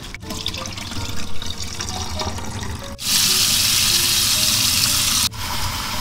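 Water sloshing as gloved hands rinse catfish chunks in a stainless steel bowl. About halfway through, a tap gushes loudly and steadily into the bowl, and the gush turns softer near the end.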